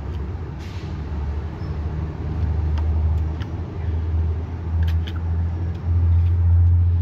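A loud low rumble that grows louder in the second half, with a few faint clicks from the metal tin of wet cat food being scooped by hand.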